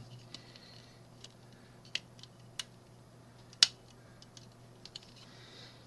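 A few sparse, irregular clicks of LEGO plastic parts being handled as the orange snowplow blade assembly is worked on, the loudest about three and a half seconds in.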